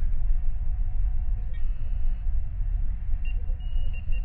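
Sci-fi starship bridge ambience: a steady low engine rumble, with a few short high electronic beeps coming in about three seconds in.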